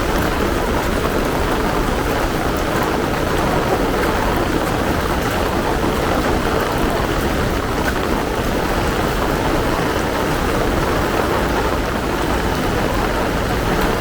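Heavy rain pouring steadily, an even hiss of downpour with no break or change.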